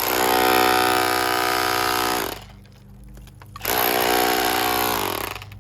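Handheld power tool running in two bursts, about two seconds and then about a second and a half, with a short pause between, while stripping old plaster off a stone wall.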